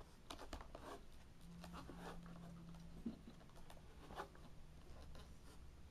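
Faint rustling and scattered light clicks of hands working twist ties loose from a toy's packaging. A faint low hum comes in for a second or so in the middle.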